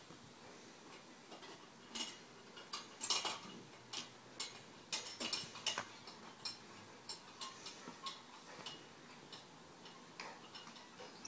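Irregular sharp clinks and knocks of metal hardware on an obstacle-course rig as a person swings hand over hand along its hanging grips and bars.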